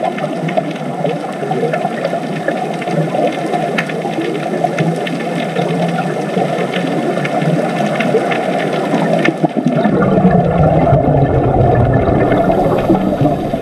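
Underwater ambience as heard through a camera's microphone: dense, muffled water noise with scattered faint clicks. A deeper rumble comes in about ten seconds in.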